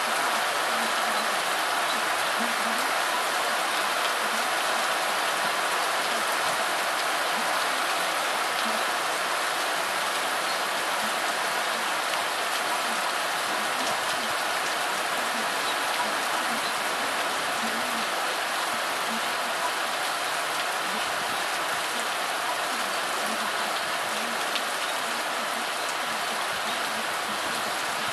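Steady heavy rain from a rainstorm, falling and splashing into standing water and onto wet grass.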